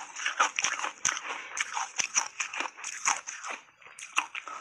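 Block ice coated in matcha powder being bitten and chewed, picked up close by a lapel microphone: a quick, irregular run of sharp crunches and cracks.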